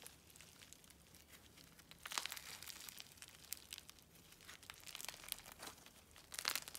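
Crunchy foam-bead slime being squished and stretched by hand, giving faint, scattered crackles and small pops. The crackling is denser about two seconds in and again near the end.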